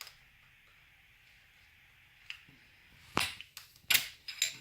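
Sharp clicks and knocks of gear-pump parts being handled during strip-down: a small click at the start, then three sharp knocks in the last second and a half.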